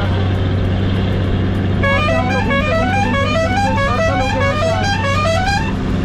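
Bus engine running steadily on a hill climb, and from about two seconds in a multi-tone musical vehicle horn plays a quick rising tune over and over for about four seconds.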